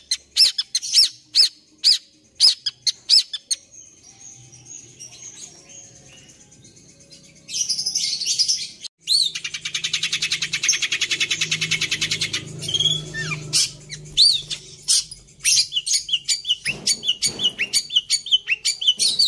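Long-tailed shrike (pentet) singing a mimicked song, taught to copy the sirtu: a run of sharp repeated chirps, a quieter pause, a rapid buzzy trill of several seconds in the middle, then fast chirping again near the end.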